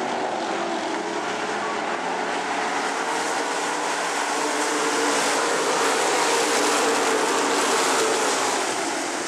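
Engines of a pack of pure stock dirt-track cars running hard around the oval, a dense steady engine noise that swells louder in the second half.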